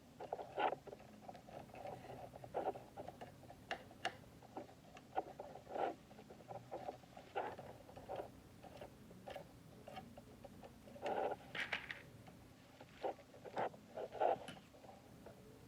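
Hands working on wiring: irregular small clicks, taps and rustles of wires, connectors and tools being handled, a few sharper ticks among them.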